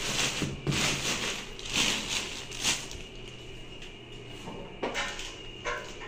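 Clear plastic wrapping crinkling and rustling as a toilet seat unit is handled, in several loud surges over the first few seconds, then quieter, with a couple of light knocks near the end.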